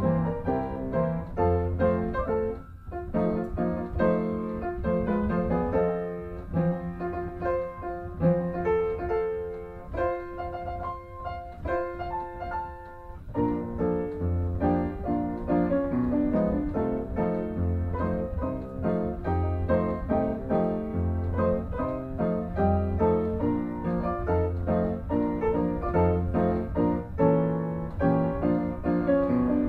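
Solo piano music: a flowing run of notes over repeated bass notes, with a few seconds of held chords about ten seconds in.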